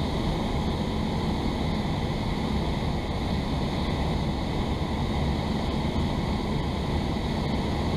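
Steady drone of a Cessna 172's engine and propeller mixed with airflow noise, heard inside the cabin as the plane descends.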